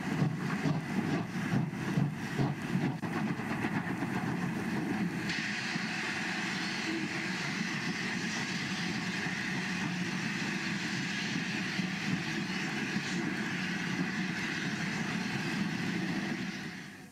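Passing steam-hauled passenger train: coach wheels clatter over rail joints in a quick, even rhythm of about three clicks a second. About five seconds in, the sound changes suddenly to a steady running noise with no beat.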